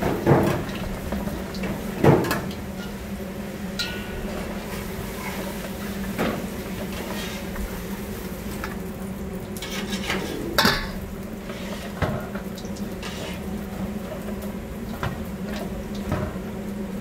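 Gloved hands tossing and mixing seasoned chamnamul greens in a large stainless-steel bowl, with leaf rustling and scattered knocks against the metal bowl, the sharpest about two seconds in and again about ten seconds in. A steady low hum runs underneath.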